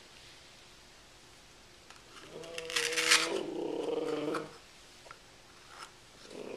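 A person's wordless vocal sound, held at a steady pitch for about two seconds starting a little after two seconds in, with a short breathy rush in the middle. A similar sound starts again near the end.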